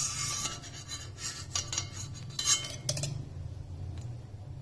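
A metal spoon scraping and clinking in short, uneven strokes as ghee is scooped into a pan.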